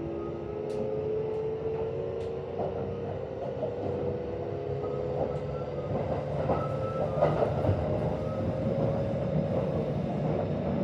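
Kintetsu 1026-series train's VVVF inverter and traction motors whining, heard from inside the car, the tones rising slowly in pitch as the train gathers speed, over running rumble and scattered clicks from the wheels and rails.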